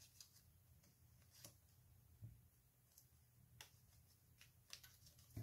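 A handful of faint, scattered clicks and taps from a small plastic hand-held paper punch being handled, over near silence.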